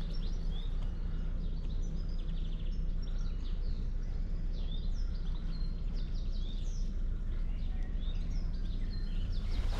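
Several small birds chirping and calling in quick, varied notes throughout, over a steady low rumble.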